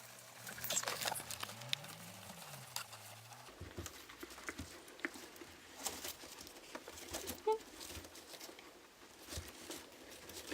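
Guinea pigs moving about, with light pattering of small feet and scattered soft clicks and rustles.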